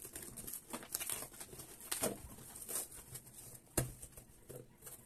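Cardboard shipping box being opened by hand: rustling and scraping of the flaps, with a few sharp clicks, the loudest about four seconds in.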